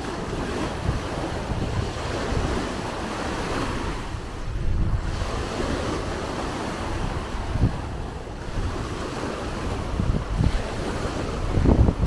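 Small sea waves breaking and washing up on a sandy shore in a steady wash of surf, with wind gusting on the microphone.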